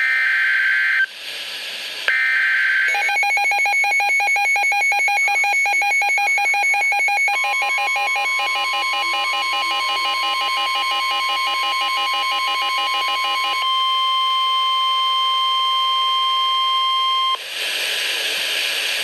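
Weather radio receiving a severe thunderstorm warning. It opens with two short screeching data bursts of the digital alert header. Then comes a fast pulsing beep, joined about seven seconds in by the steady warning alarm tone, which carries on alone once the beeping stops. A burst of static-like noise follows near the end.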